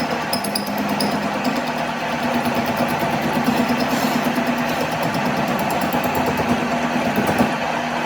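A machine running steadily, with a constant hum and a fast, even rattle.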